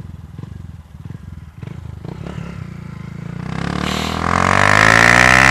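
Honda Fan 150 single-cylinder engine with a 4 mm kit, running through a Gemoto Racing aftermarket exhaust. It pulses low for about three seconds, then accelerates, rising in pitch and getting much louder.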